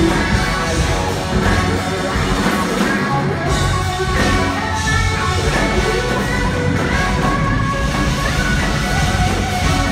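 Rock band playing live, electric guitar to the fore over bass and drum kit, in an instrumental passage with no singing.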